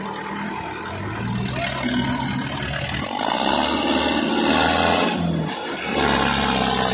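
Tractor diesel engines revving hard under heavy load as a Sonalika and a New Holland pull against each other in a tug of war. The revs rise about a second in, drop briefly after about five seconds, then climb again.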